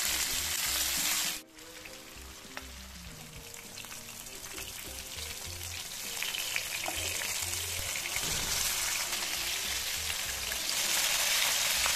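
Marinated rohu fish steaks sizzling as they shallow-fry in hot oil in a nonstick pan. The sizzle drops sharply about a second and a half in, then slowly grows louder again.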